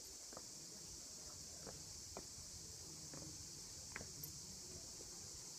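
Faint, steady high buzz of cicadas, with scattered faint irregular clicks and knocks, such as light steps on stone.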